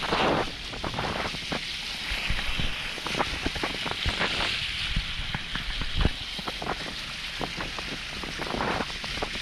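Wind buffeting the microphone and sea noise on a moving fishing boat, with scattered small clicks and knocks and one louder knock about six seconds in.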